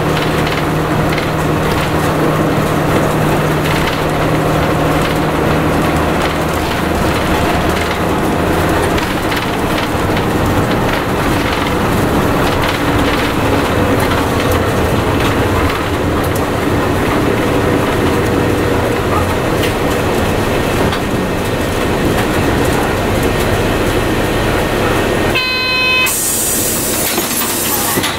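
Cabin of a 1998 Mitsubishi Fuso Aero Midi MK city bus (KC-MK219JVF) on the move: steady diesel engine and road noise, with the engine note shifting as it drives. Near the end comes a brief electronic tone, then a loud hiss.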